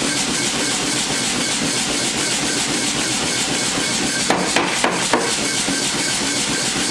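Hammer blows on mild steel during forging: four quick ringing strikes a little past the middle, over a steady mechanical shop noise.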